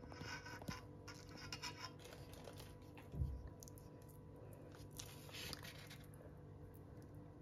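Faint scraping and wet handling noise as pieces of marinated chicken are pushed onto a bamboo skewer, in two spells: at the start and about five seconds in. A single low thump about three seconds in.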